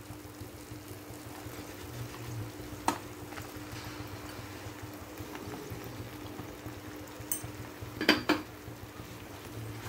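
Masala paste frying gently in butter in a non-stick pan on low heat as sliced button mushrooms are tipped in, a soft even sizzle under a faint steady hum. A sharp knock comes about three seconds in and a short clatter around eight seconds in.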